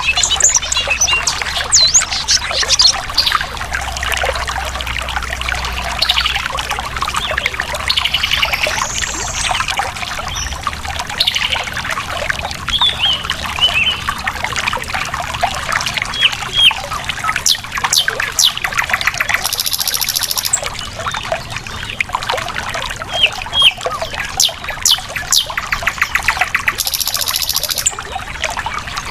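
Water flowing and trickling steadily in a stream, with many wild birds singing and calling over it: quick chirps, short whistled glides, and two brief fast buzzing trills.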